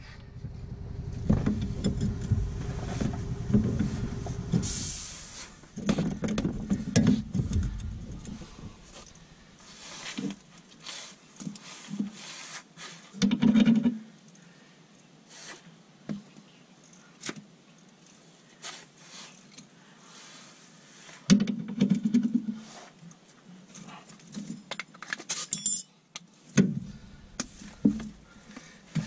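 Hand tools on the truck's front suspension: a wrench clinking and scraping against rusty metal as a link bolt is worked. Steady rustling and scraping for the first several seconds gives way to scattered metallic clicks and knocks.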